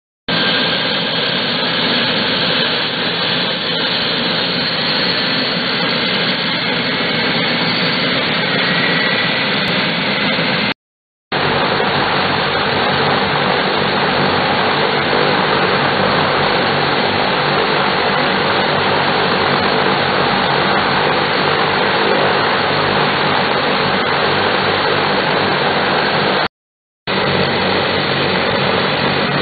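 Allison 501 turboprop engines of a Lockheed L-188 Electra running during a ground run-up: a loud, steady propeller drone with a high turbine whine. The sound cuts out completely twice, briefly, about eleven seconds in and again near the end.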